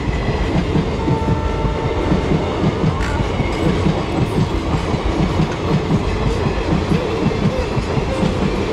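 Indian Railways passenger coaches rolling past, their wheels clattering rhythmically over the rail joints with a steady rumble.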